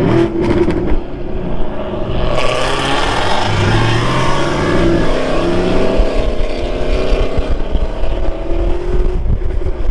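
2019 Camaro 1LE V8 running through a Corsa cat-back exhaust, revving and pulling, its pitch rising and falling several times, with a few sharp pops in the first second.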